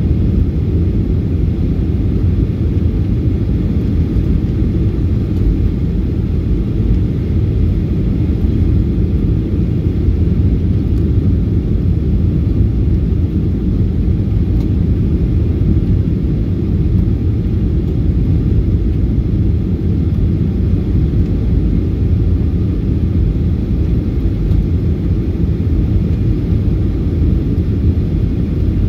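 Cabin noise of a Boeing 737-800 in flight: the steady low rumble of its CFM56-7B turbofan engines and the airflow over the fuselage, heard from a window seat. It holds an even level throughout.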